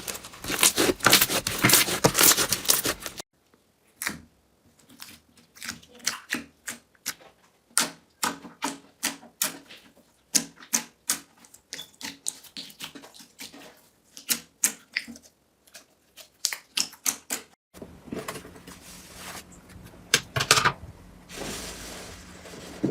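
Slime being handled, making sticky clicking and popping sounds: dense crackling for the first three seconds, then separate sharp clicks and pops with short gaps between them. Near the end a steady low hum comes in under softer squishing.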